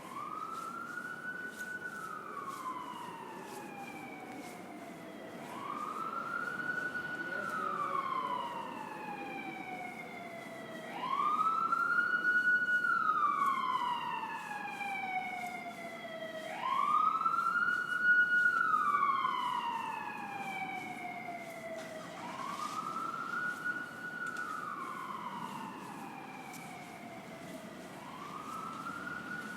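Emergency vehicle siren wailing, each cycle rising quickly and then falling slowly, repeating about every five and a half seconds. It grows louder toward the middle and then fades a little.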